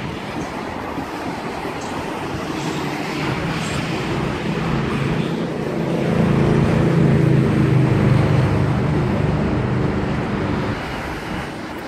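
Sydney Trains Millennium (M-set) double-deck electric train rolling along the platform, then standing with a steady electric hum of several deep tones that grows louder about four seconds in and fades near the end.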